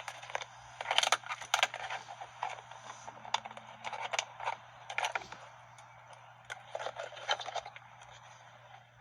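Hand work on a car's steering column: irregular clicks, scrapes and rustles as parts and wiring connectors are handled, in short clusters with pauses between.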